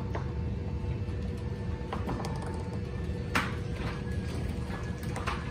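Garage door opener running a wooden sectional door along its tracks: a steady motor hum over a low rumble, with scattered clicks and clunks from the rollers and hinges, the loudest about three and a half seconds in.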